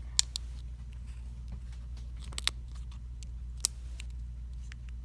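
Scattered sharp little clicks and taps of small phone parts and tools being handled during smartphone reassembly, two of them louder than the rest, over a steady low hum.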